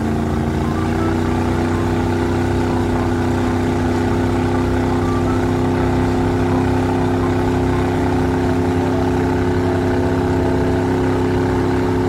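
Cartoon sound effect of a vehicle engine running with a steady drone. Its pitch rises slightly during the first second, then holds.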